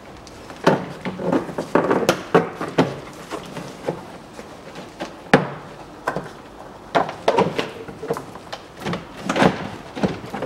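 A wheel-arch liner being pulled and worked out of the front wheel well: irregular knocks, clatters and scrapes as the liner is flexed against the arch and suspension.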